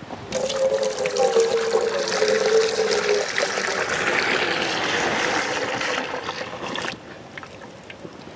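Milky ice-cream mixture poured in one long stream from a large aluminium pot into a metal bowl, splashing steadily, with a faint ringing tone in the first few seconds. The pour tails off about seven seconds in as the pot empties.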